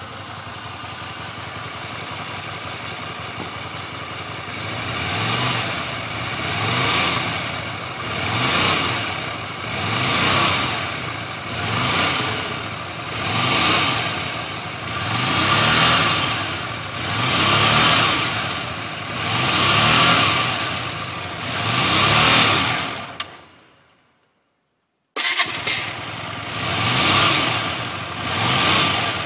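Hyosung GT125R's 125 cc V-twin engine running, then revved and let fall back over and over, about once every 1.7 s. The owner reports a strange noise from the engine on deceleration and engine braking, as the revs drop. The sound cuts out completely for a moment about 24 s in, then the revving resumes.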